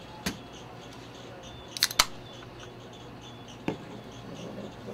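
Sharp clicks and knocks of an aluminium beer can being handled at a bar's cooler well and set on the wooden bar top, with a loud quick double click about two seconds in.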